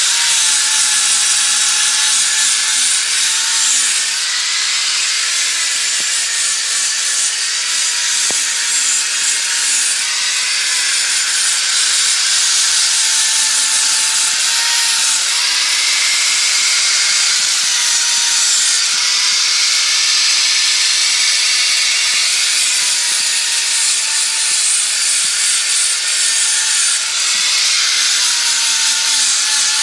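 Angle grinder with a grinding disc sharpening the edge of a steel cleaver blade: a steady, harsh grinding hiss over the motor's whine. The whine wavers slightly in pitch as the blade is pressed onto the disc.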